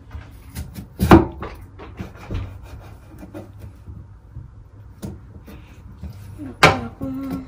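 A kitchen knife cutting through raw potato onto a cutting board: slow, irregular knocks, two of them louder than the rest, about a second in and near the end.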